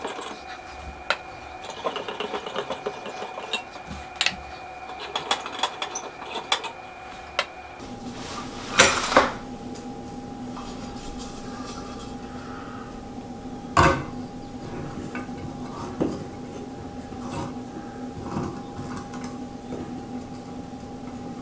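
Quick clicks and light clinks of light bulbs being twisted out of recessed ceiling can-light sockets and handled, then a few sharper knocks as a pendant light adapter is screwed into a socket, over a steady hum.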